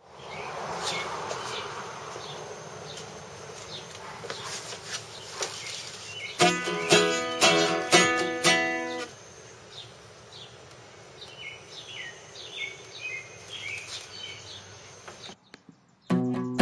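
Acoustic guitar played for about three seconds, starting about six seconds in, over outdoor ambience of short, repeated, falling chirps. It drops to near silence shortly before the end, then the guitar starts playing again.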